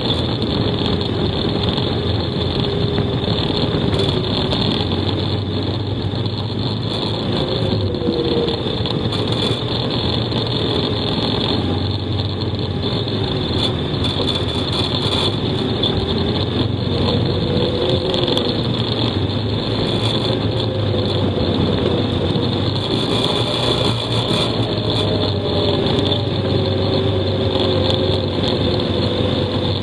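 Dinli Centhor 800 EFI quad's engine running steadily under light, varying throttle, its pitch rising and falling gently, with a steady high whine alongside.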